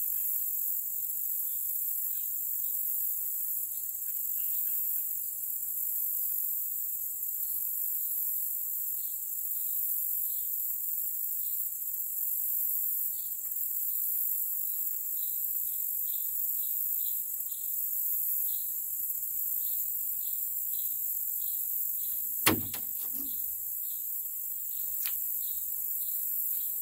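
Steady, high-pitched insect chorus, with a short chirp repeating about twice a second over it. A single sharp knock comes about twenty-two seconds in.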